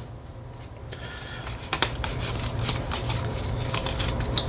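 Pokémon trading cards sliding and rubbing against each other in the hands as a pack's stack is thumbed through: a run of short papery scrapes and clicks starting about a second in.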